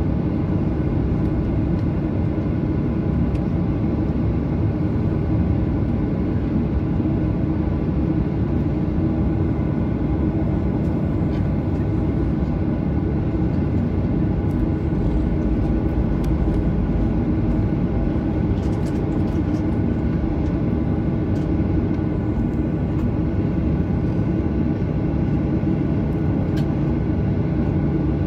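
Boeing 737-800's CFM56 jet engines running steadily, heard inside the cabin as a constant noise with a hum of several steady tones. A few faint ticks come in the second half.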